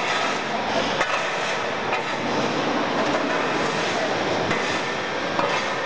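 Production-line machinery running, a chevron rubber conveyor belt among it: a steady dense mechanical noise with scattered knocks.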